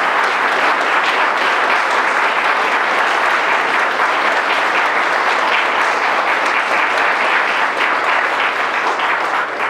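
Audience applauding, many hands clapping at once in a steady, loud wash; it dies down right at the end.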